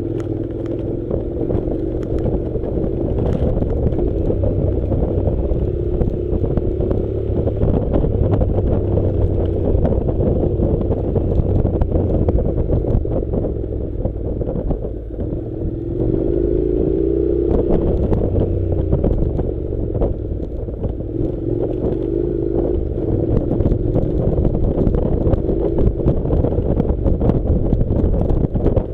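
Honda NC700's 670 cc parallel-twin engine running on a rough dirt track, its note rising and falling a few times with the throttle, over a low rumble and scattered knocks and clatter from the bumpy ground.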